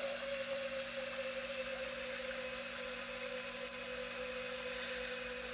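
Steady hum at one pitch over an even background hiss, with a single faint high click a little past halfway.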